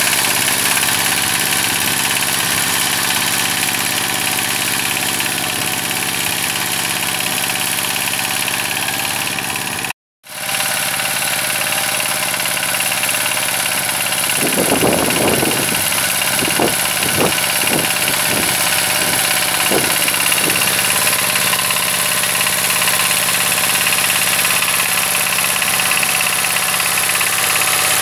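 ZUBR 12 hp walk-behind tractor's single-cylinder diesel engine running steadily under load while driving its rotary tiller through the soil. The sound drops out for a moment about ten seconds in.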